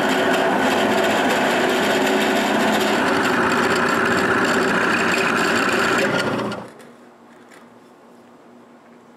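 Drill press running, its bit boring a shallow recess for a bolt head into a wooden block: a steady motor hum mixed with cutting noise that stops about six and a half seconds in.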